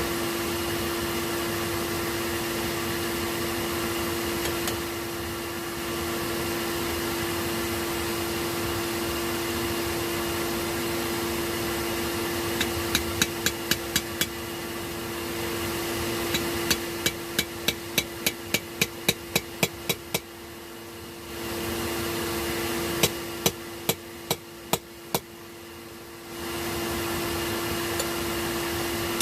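Forge blower running with a steady hum, with runs of hammer blows on hot rebar starting about halfway in, about three to four strikes a second. The hum drops away briefly twice between the runs.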